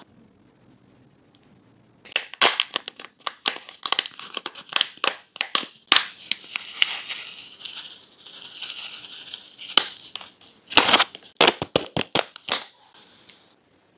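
Crinkling and crackling, as of something being crumpled or handled: a run of sharp crackles starting about two seconds in, with a denser rustle in the middle, stopping about a second before the end.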